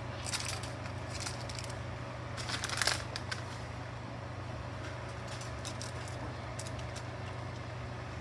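Light rustling and clicking handling noises, loudest about three seconds in, over a steady low hum.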